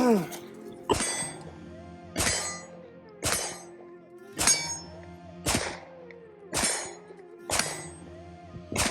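Sharp metallic clangs, about one a second, each ringing briefly, over background music.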